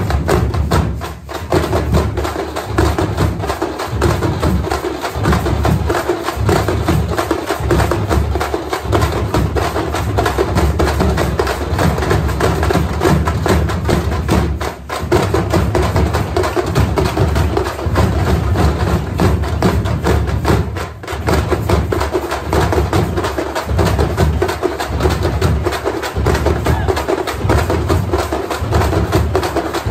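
A troupe of parai frame drums beaten with sticks, playing a fast, dense rhythm together, with a few brief breaks in the beat.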